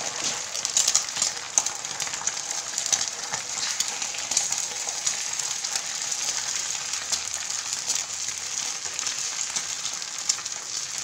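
Egg frying in oil on a flat griddle pan: a steady sizzle with many small crackles and pops.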